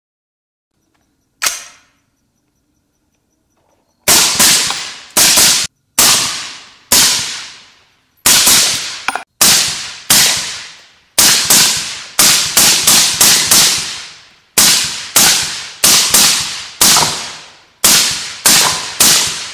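A suppressed AR-15 rifle firing a long string of shots, some two dozen, singly and in quick strings of two to four, each shot followed by a ringing decay. A single sharp crack comes about a second and a half in, before the string starts.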